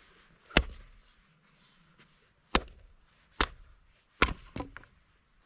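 Wood being chopped: four sharp blows at uneven gaps of about one to two seconds, the last followed by a couple of lighter knocks.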